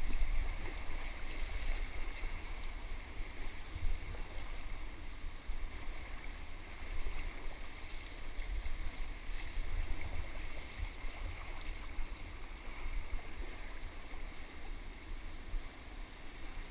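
Whitewater rushing and splashing around an inflatable kayak as it runs a rapid, with a low, uneven rumble underneath and a few sharper splashes.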